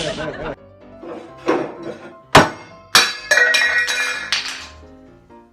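Background music with two sharp knocks about two and a half and three seconds in, the second followed by a ringing clink.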